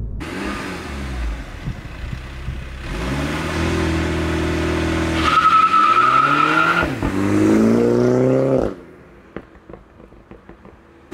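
Mini John Cooper Works' turbocharged four-cylinder engine with a JCW Pro exhaust, accelerating hard: the revs climb and hold, drop sharply at a gear change and climb again, with a high steady whistle over it for about a second and a half. The engine sound cuts off suddenly near the end, leaving a quieter stretch with faint scattered crackles.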